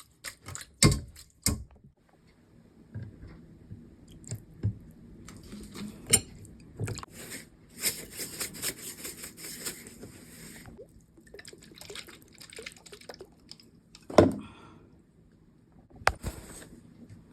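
Cooking sounds: a utensil knocking sharply several times, with a few seconds of wet crackling in the middle.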